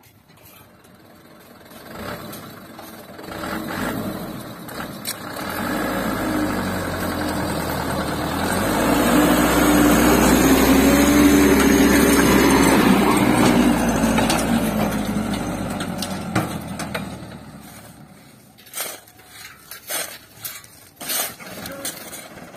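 Mitsubishi Canter dump truck's diesel engine working hard as the truck pulls through soft sand, building up, loudest midway with the revs stepping up, then fading away. A few sharp knocks near the end.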